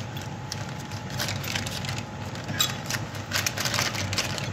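Small clear plastic zip bag of parts crinkling and rustling as it is handled and opened, in irregular short crackles.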